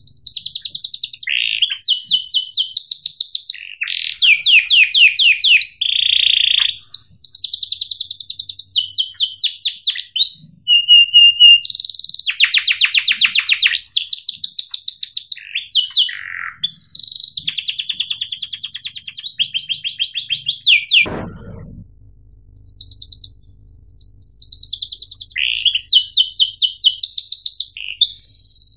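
Domestic canary singing a long song of rapid chirps and rolling trills in quickly changing phrases, with a short break about two-thirds of the way through.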